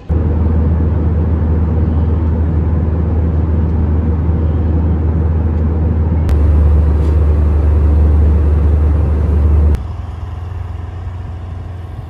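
Loud, steady low rumble of a vehicle under way, which steps up slightly about six seconds in and drops off sharply about ten seconds in.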